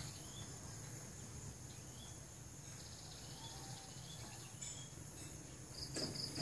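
Faint outdoor ambience of insects shrilling steadily at a high pitch, with a short rapid pulsing trill near the end and a few soft, high chirps scattered through.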